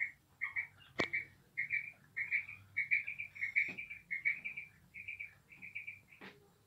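Female quail calling: short chirping notes repeated quickly in pairs and triplets. Three sharp clicks cut in, about one, three and a half and six seconds in.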